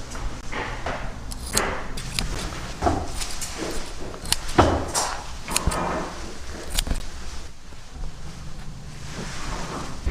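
Irregular clicks, knocks and rustling from hands-on upholstery work on a sofa, over a steady low hum.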